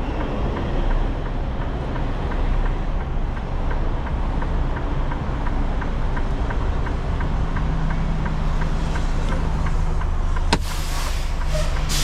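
Semi truck's diesel engine running with a steady low rumble while the truck creeps along; near the end a sharp click is followed by bursts of air hiss from the truck's air brakes.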